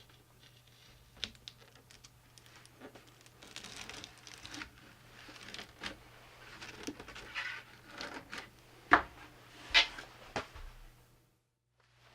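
Handling noise from work on the amplifier: scattered clicks and rustling, with two sharp knocks about nine and ten seconds in, over a faint steady low hum that cuts off about eleven seconds in.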